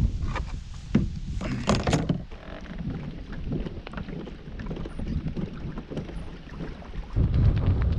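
Water splashing and lapping against a Hobie kayak's hull as it moves, with a few sharper splashes or knocks in the first two seconds. Wind starts buffeting the microphone about seven seconds in.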